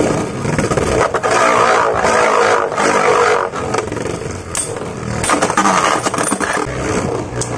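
Two Beyblade Burst tops, one of them Gatling Dragon, spinning in a plastic stadium: a steady whirring scrape of their tips on the stadium floor, with a few sharp clacks of impact about halfway through and again near the end.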